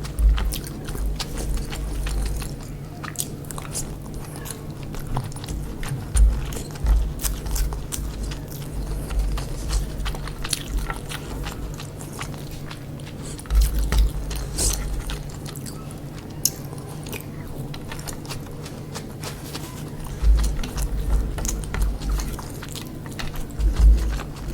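Close-up eating sounds of chicken biryani being bitten and chewed, with small mouth clicks, coming in bursts with short pauses.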